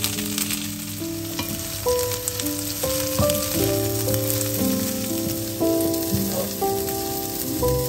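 Broccoli florets sizzling as they fry in butter in a stainless steel pan, turned now and then with a wooden spatula; the sizzle thins out in the second half. Soft background music with held notes plays throughout.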